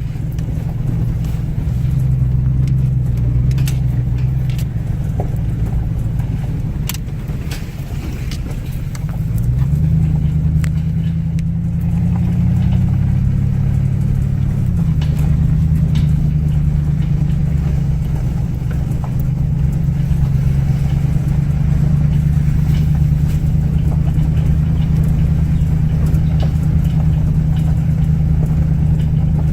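Car engine and road noise while driving, a steady low engine note that rises about ten seconds in and settles again a few seconds later, with a few faint clicks.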